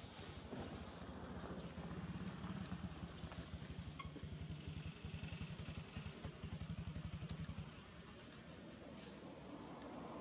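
Steady high-pitched insect chorus, with a low engine hum rising and fading through the middle.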